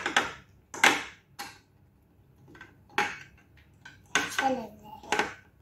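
Toy dollhouse pieces being handled, giving a series of sharp clacks and knocks at uneven intervals, the loudest right at the start and about a second in.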